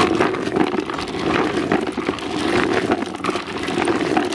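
Boilies, sweetcorn and hemp seed rattling and clattering in a plastic bait bucket as a bait spoon stirs and scoops through them, a dense run of many small knocks that starts suddenly.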